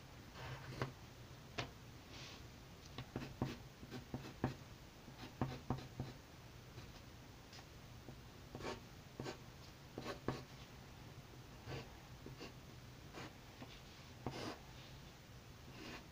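Pencil scratching on paper in quick, irregular sketching strokes.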